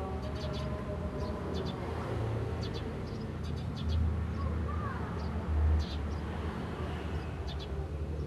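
Eurasian tree sparrows chirping in short, scattered bursts over a steady low rumble that swells twice.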